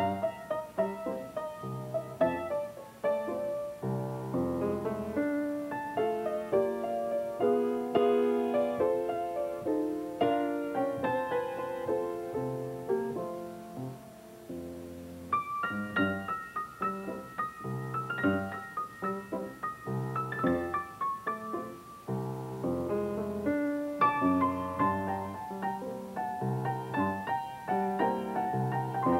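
Background piano music: a steady flow of played notes that softens briefly about halfway through, then picks up again.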